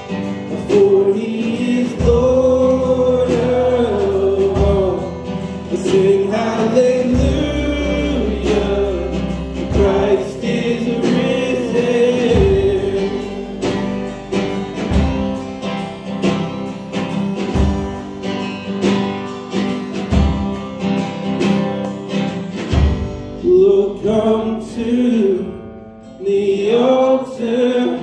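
Worship music: voices singing a slow gospel-style song over instrumental accompaniment with sustained bass notes.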